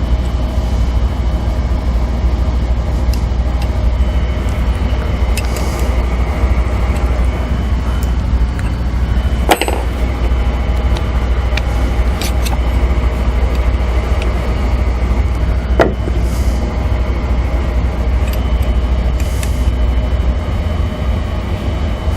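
A loud, steady low hum with no changes, its source not identified. A sharp metal click or knock sounds about ten seconds in and another about sixteen seconds in, with a few fainter ticks, as bolts on the mill's Z-axis assembly are tightened with a wrench.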